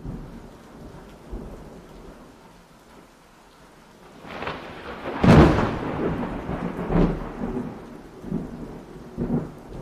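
Thunderstorm: a steady hiss of rain with a rolling thunderclap that builds about four seconds in, loudest just past five seconds, followed by further rumbles near seven and nine seconds.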